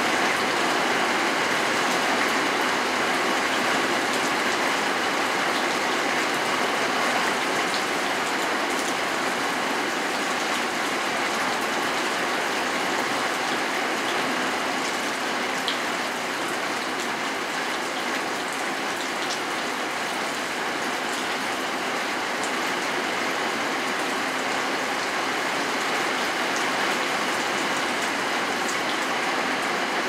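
Steady rain falling, an even hiss with a few faint drop ticks here and there.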